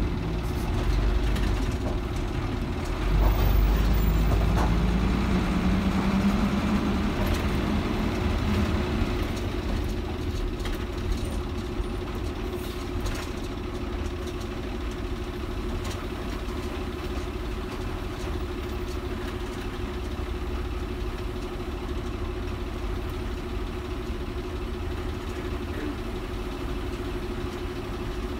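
DINA city bus's diesel engine running, heavier a few seconds in as its pitch rises steadily for about five seconds as it speeds up, then settling into a steady run.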